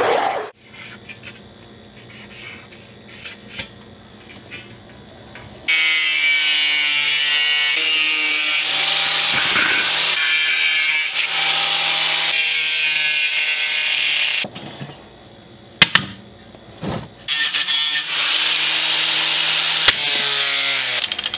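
Makita angle grinder with a cutoff wheel cutting painted sheet steel from a 55-gallon drum: after a quiet start it runs loud for about eight seconds with a steady high whine over a hiss, stops briefly with a couple of sharp clicks, then cuts again and spins down near the end.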